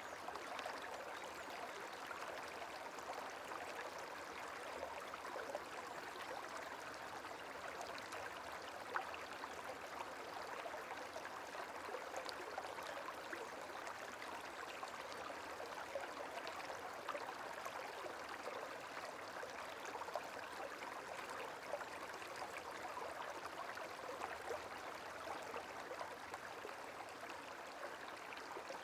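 Gentle running water, like a small stream, flowing steadily with tiny splashes.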